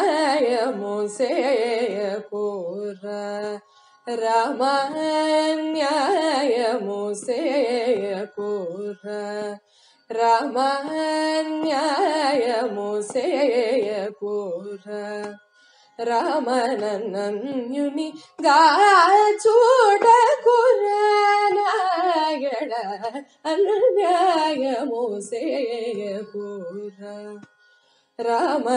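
Solo female voice singing a Carnatic kirtana in raga Kapi, in phrases a few seconds long with heavily ornamented, sliding pitch and brief pauses between them. A steady electronic tanpura drone sounds beneath.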